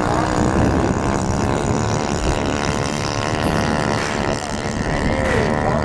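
An engine running steadily with a dense, even drone.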